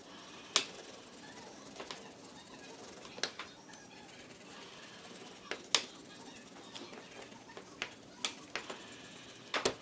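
About a dozen sharp, irregularly spaced clicks and taps over a faint steady hiss, the loudest about half a second in, near the middle, and a close pair near the end.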